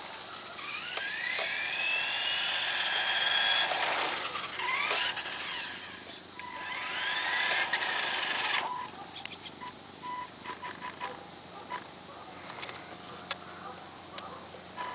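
Electric motor and gears of a Tamiya TT-01 radio-controlled car whining as it speeds up and lets off, the pitch rising and falling in several sweeps. About nine seconds in the whine drops away, leaving light ticks and clicks.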